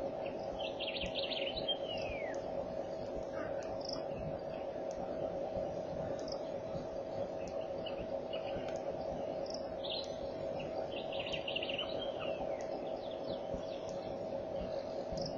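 Birds calling: a trilled phrase ending in a falling whistle, heard twice about ten seconds apart, with short scattered chirps between, over a steady low hum.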